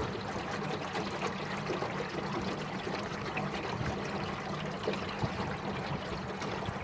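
Steady rushing, trickling water around a small fishing boat, with a low, steady motor hum underneath.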